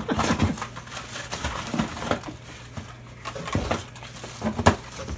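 Rustling and irregular clicking as packaged fishing lures are handled and rummaged through in a cardboard shipping box, with a sharper knock near the end.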